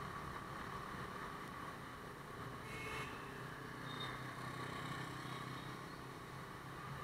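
Motorbike running at a steady cruising speed in light city traffic: a steady engine hum with road and wind noise. A short high-pitched sound comes about three seconds in.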